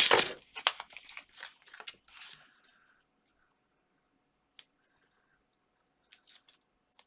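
Paper and card being handled while a small topper is stuck onto a card: a sharp crackle at the start, a couple of seconds of crinkly rustling and small clicks, then a single click and a few faint ticks near the end.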